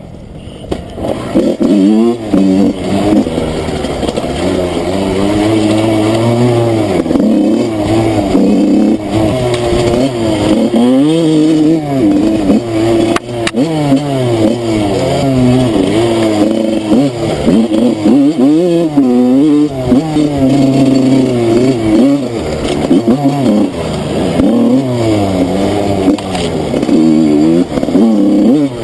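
Enduro dirt bike engine being ridden off-road, its revs rising and falling over and over with the throttle; it picks up about a second in.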